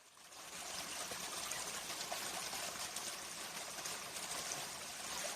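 Running water, a steady trickling rush that fades in over the first half second.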